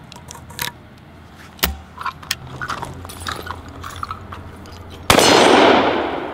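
Shells slid into the chambers of a 1906 L.C. Smith 12-gauge side-by-side double-barrel shotgun, with light handling clicks and the action snapping shut about a second and a half in. About five seconds in, one barrel fires: a single loud shotgun blast that echoes and dies away slowly.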